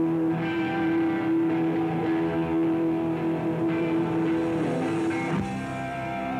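Live rock band playing, an electric guitar holding one long note that bends down and breaks off about four and a half seconds in, with new notes coming in after it.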